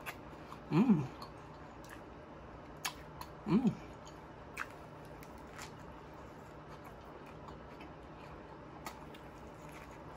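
A man chewing a mouthful of grilled chicken sandwich close to the microphone, with two short 'mmm' hums of enjoyment, about one second and three and a half seconds in, and a few sharp wet mouth clicks.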